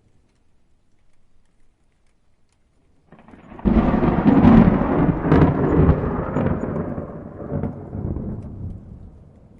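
A peal of thunder. After a few seconds of faint low rumble, it swells about three seconds in and breaks into a loud, crackling clap, then rolls on and slowly fades.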